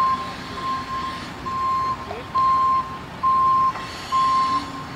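Backup alarm on a JCB telehandler beeping steadily, about one half-second beep a second, as the machine reverses, with its engine running underneath.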